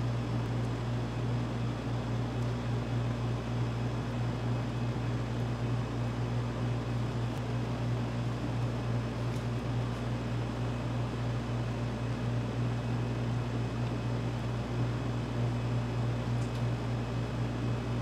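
Steady machine hum, like a fan or motor running, with a few faint ticks.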